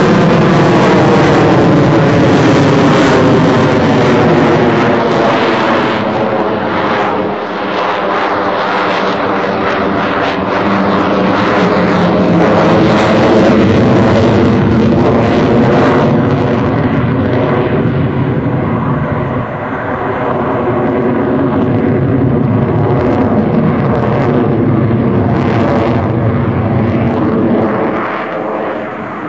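F-14 Tomcat fighter jet engines running loud through a demonstration pass, the pitch of the sound sweeping as the jet moves past. In the second half the sound turns duller as the jet draws away.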